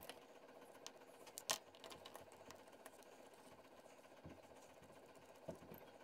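Near silence: faint room tone with a few soft clicks and taps from hand work at the bench, the sharpest about one and a half seconds in.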